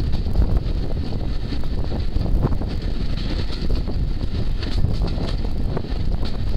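Wind buffeting the microphone held out of the window of a moving Hampshire DEMU (diesel-electric multiple unit), over the train's steady running noise.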